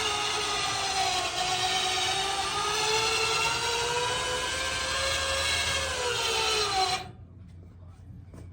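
A motorcycle lift's powered lifting unit running with a steady whine under the weight of the Can-Am F3, its pitch wavering slightly and sagging a little near the end, then cutting off suddenly about seven seconds in as the bike reaches lifted height.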